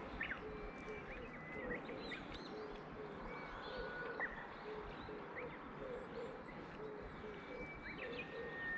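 Wild birds chirping and whistling, with short chirps and a few long held whistle notes, over steady outdoor background noise, with a lower call repeating about twice a second underneath.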